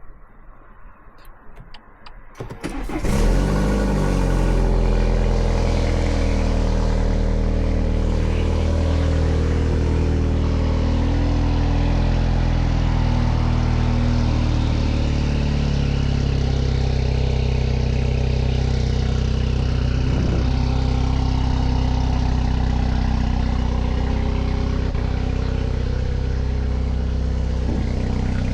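BMW 220i's B48 turbocharged four-cylinder, fitted with an M240i exhaust and a free-flow stainless downpipe, starting up about three seconds in with a short flare. It then settles into a loud, steady fast idle.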